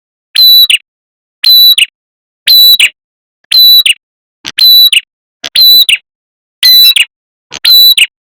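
Prenjak kepala merah bird call played as a trapping lure: eight short, loud, high calls, about one a second, several opening with a brief lead note.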